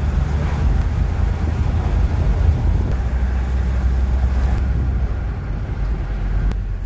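Road noise inside a moving car's cabin: a steady low drone from the engine and tyres.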